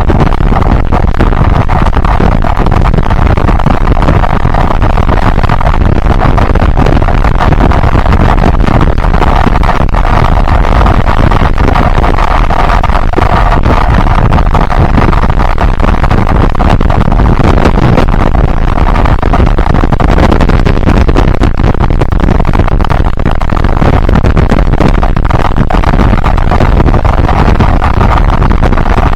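Yamaha Byson motorcycle being ridden: its engine running under steady wind rush on the microphone, loud and unbroken throughout.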